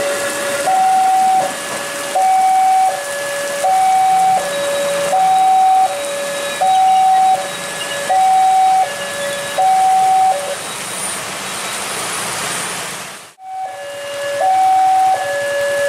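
Railway level-crossing warning alarm: an electronic two-tone bell alternating between a higher and a lower note, one change about every three-quarters of a second, over the steady hiss of heavy rain. It stops about two-thirds of the way through, leaving only the rain, then starts again near the end after a sudden break.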